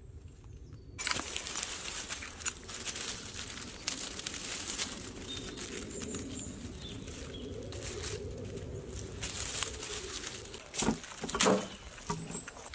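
Dry leaves, twigs and pine needles crackling and rustling as pine cones are picked up off the woodland floor by hand, with a sharp crack about a second in. Near the end come two louder knocks as cones drop into a metal wheelbarrow.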